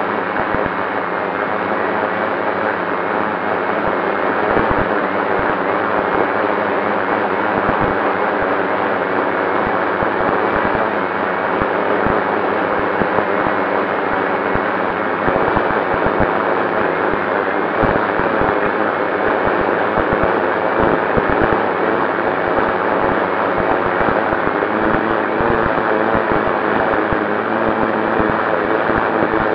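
FPV quadcopter's electric motors and propellers whining steadily under a dense rush of air, with wind buffeting the onboard microphone.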